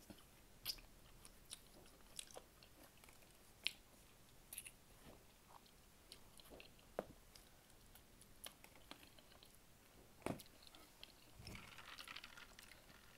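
Faint chewing and mouth clicks of a person eating chicken wings, gnawing the meat off the bones, with irregular soft clicks a few times a second.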